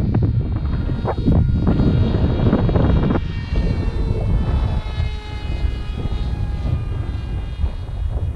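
Electric motor and propeller of an RC flying wing whining in flight, its pitch sliding slowly down after about three seconds in. Gusty wind buffets the microphone, loudest in the first few seconds.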